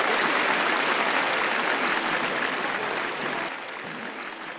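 Audience applauding, fading away over the last second or so.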